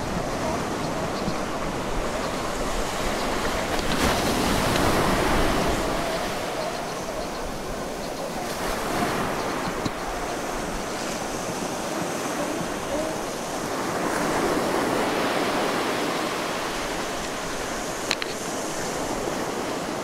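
Ocean surf breaking on rocks and rolling in, a steady wash that swells and eases in slow surges, loudest a few seconds in and again past the middle. A brief click near the end.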